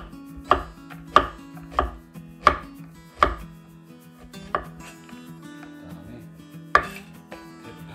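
A chef's knife chopping squash into sticks on a wooden cutting board: sharp single knocks at an uneven pace, about seven in quick succession, then a pause and one more near the end.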